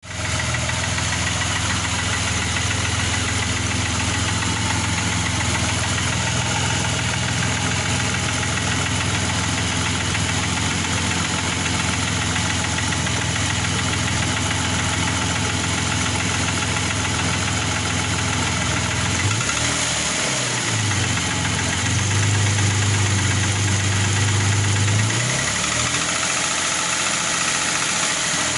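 Opel X25XE 2.5-litre V6 engine idling with a knock, freshly reassembled; the owner does not know what is knocking. The low engine note wavers a few times in the last third.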